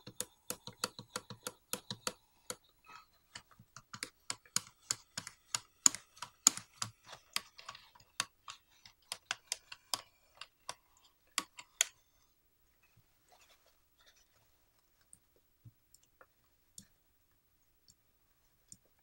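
Rapid, irregular small clicks and ticks from the potentiometers on a bass's metal control plate as they are turned back and forth by hand, working contact cleaner into crackly pots. After about twelve seconds the clicking thins out to a few faint ticks.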